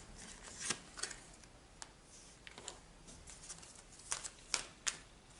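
Tarot cards being handled: a scatter of soft flicks and taps, the clearest three close together in the second half.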